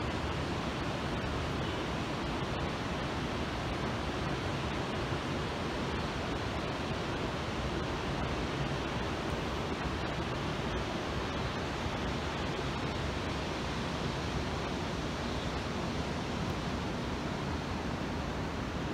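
Steady rushing of fast-flowing mountain stream water, an even noise with no let-up.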